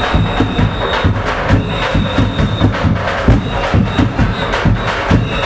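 Carnival percussion band playing a fast, driving rhythm of drums and hand percussion, with a thin high steady tone sounding on and off above it.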